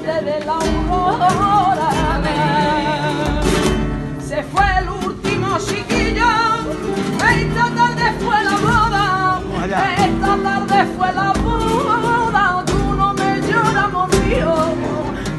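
A woman singing a sevillana in flamenco style, her voice winding through ornamented, wavering runs over strummed guitar chords and a steady rhythm of sharp strokes.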